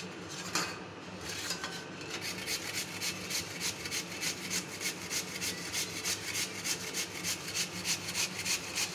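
Peeled potato being grated on the coarse side of a stainless steel box grater: a scraping stroke repeated about three to four times a second, settling into a steady rhythm about two seconds in.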